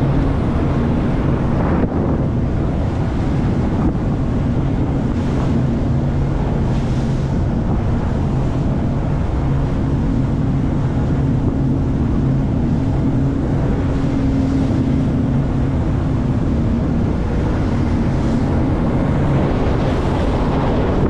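Boat engine running steadily under way, a constant low hum, with wind buffeting the microphone and water noise around the hull.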